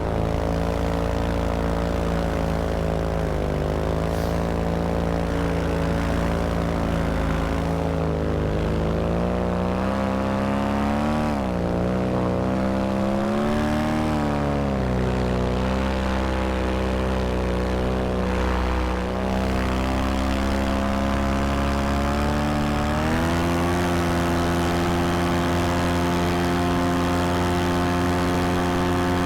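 Vittorazi Moster 185 single-cylinder two-stroke paramotor engine running with its propeller. The pitch wavers up and down around the middle, then steps up to a higher steady speed near the end.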